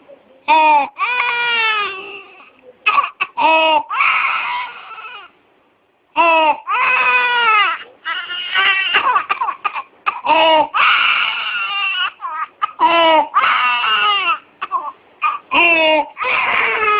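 Infant crying in repeated high-pitched bouts, with a brief pause about six seconds in, recorded as an example of stridor: harsh, noisy breathing from a narrowed upper airway.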